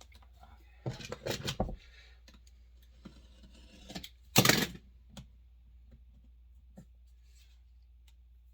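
Hands working old tape off a wooden axe handle: small clicks and handling noises, with one short, loud, noisy rasp about four and a half seconds in.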